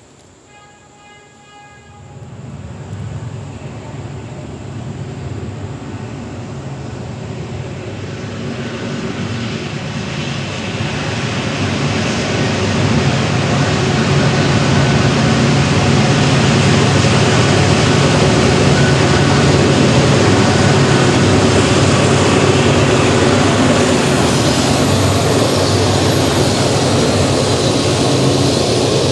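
Norfolk Southern freight train led by GE diesel locomotives (C40-9W and ES40DC) approaching and passing. The engines' rumble builds steadily for about ten seconds as they come near, then holds loud as the locomotives and the double-stack container cars roll past.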